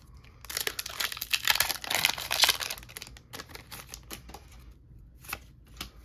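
Foil booster-pack wrapper of a Pokémon card pack crinkling and tearing open for about two and a half seconds, followed by scattered light clicks of the cards being handled.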